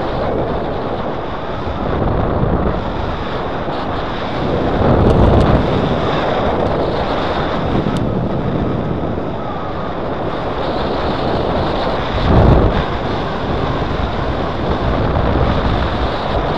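Airflow buffeting the microphone of a paraglider pilot's camera in flight: a steady rushing rumble, swelling louder about five seconds in and again around twelve seconds.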